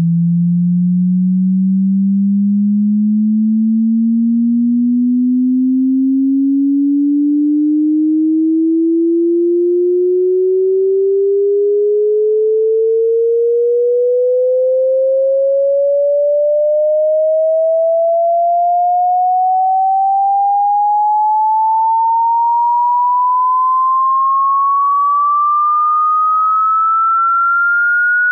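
Electronic pure sine-wave test tone of a hearing test, sweeping slowly and evenly upward in pitch from a low hum to a high whistle at constant loudness.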